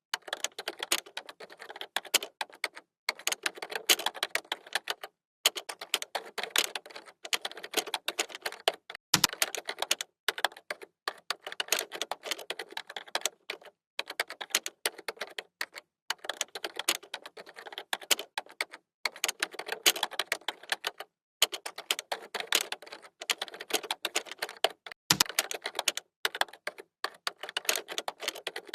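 Computer keyboard being typed on fast: a dense run of key clicks, with short pauses every few seconds. Two heavier, deeper key thumps stand out, about 9 and 25 seconds in.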